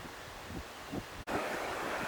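Steady rush of flowing valley water. It comes in louder just after a brief dropout about halfway through. Before that there is a quieter even hiss with a few faint low thumps.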